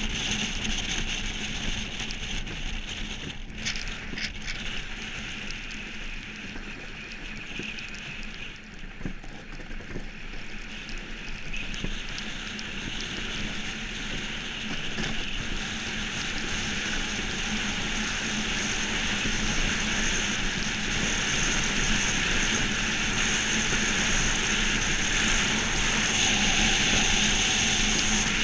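Monotype XV iceboat underway, its steel runners hissing and rumbling over the ice with wind rushing on the microphone. The noise dips briefly a third of the way in, then grows steadily louder through the second half.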